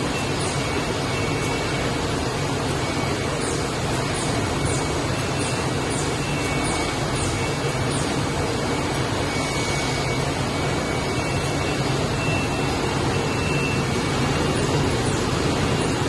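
Shrink-wrapping machine running steadily: a continuous mechanical drone and rumble, with brief high squeaks or chirps here and there and faint on-off thin tones.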